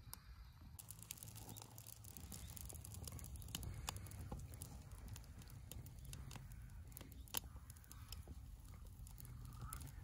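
Bamboo and dry bamboo leaves burning in a metal fire pit, crackling with irregular sharp pops and snaps that grow thicker about a second in, over a low steady rumble.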